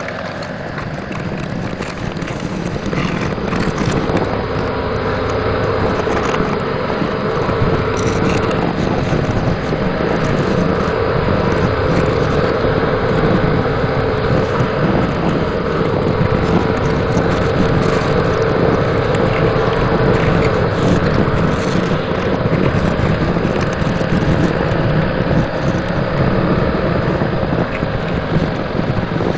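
Truck engine running steadily, growing louder over the first few seconds and then holding.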